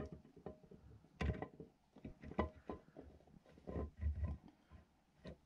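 Irregular knocks and clunks of a heavy transmission countershaft being angled and worked into a Tremec 3550 TKO case, metal bumping against the case, about eight knocks, the loudest a little over a second in and around four seconds in.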